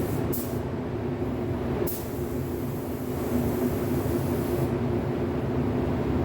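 Steady mechanical drone of spray-painting equipment and ventilation, with a high air hiss from the spray gun that stops about three-quarters of the way through. Two short, sharper hisses come near the start and about two seconds in.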